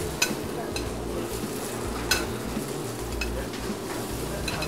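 Jumbo scallops, red peppers, scallions and shiitake mushrooms sizzling in a hot pan, with a few sharp clicks of metal tongs against the pan and plate as the vegetables are moved in; the loudest click comes about two seconds in.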